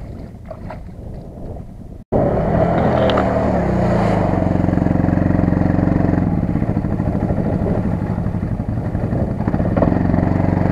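CFMoto CF800-Z8 side-by-side buggy's V-twin engine revving hard and labouring as it drives through mud and shallow pond water, the pitch dipping and rising with the throttle. It starts abruptly about two seconds in, after a quieter stretch with faint voices.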